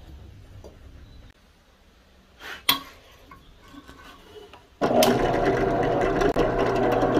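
Drill press starting up suddenly about five seconds in and running steadily, its twist drill bit working on a steel knife blank cut from an old circular saw blade. Before it, a single sharp knock.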